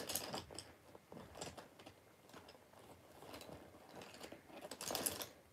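Small objects being handled and rummaged through by hand on a carpeted floor: irregular light clicks and rustling, busiest near the end.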